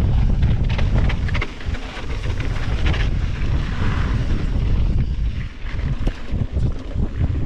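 Wind buffeting the microphone of a body-mounted action camera on a mountain bike descending at around 30 km/h, with tyres rattling and crunching over a gravel track. The rumble eases briefly twice, about two seconds in and again near six seconds.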